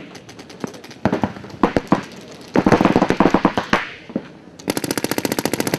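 Paintball markers firing: scattered single shots at first, a rapid burst about two and a half seconds in, then a steady, fast stream of shots from nearly five seconds in.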